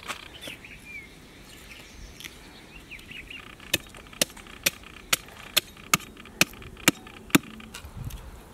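A heavy butcher's knife chopping through a mutton rib rack onto a wooden chopping block: nine sharp, evenly spaced chops at about two a second, from about halfway in.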